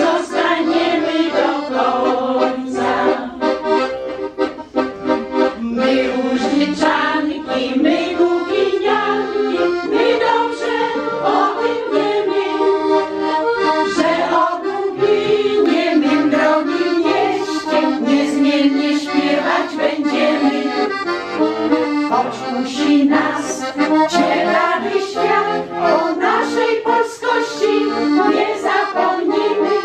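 Piano accordion playing a folk-style tune, accompanying a group of women singing together.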